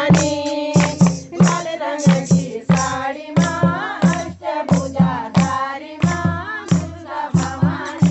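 A group of women singing a devotional folk song (chanchari or bhajan) in unison, clapping their hands, over the steady beat of a dhol barrel drum.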